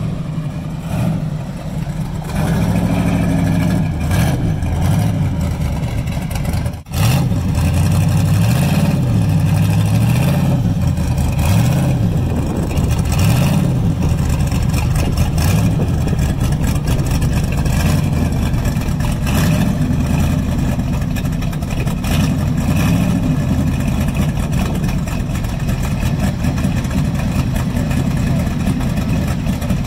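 Chevrolet Nova pro-street car's engine running as it rolls slowly by, its exhaust note rising and falling with repeated light throttle blips, then settling to a steadier idle-like run in the second half.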